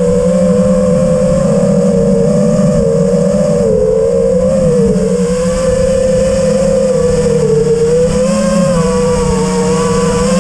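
FPV quadcopter's brushless motors and propellers whining as it flies, picked up by the GoPro mounted on the quad; the pitch wavers up and down with the throttle.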